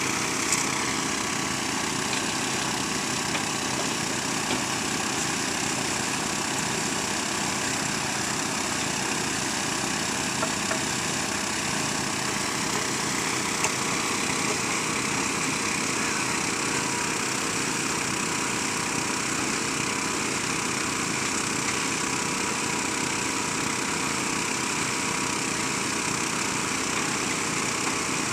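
Small engine running steadily at one constant speed, driving a gold-washing machine (lavadora) used for washing river gravel for gold.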